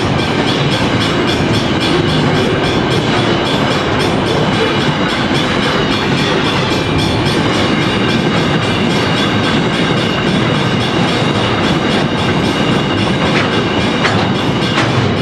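Container wagons of a freight train rolling past close by: a steady, loud rumble of steel wheels on rail, with a repeating clatter of wheels over rail joints.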